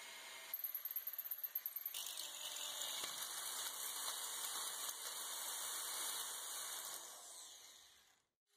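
Power drill boring through steel square tubing, running steadily, then fading out near the end.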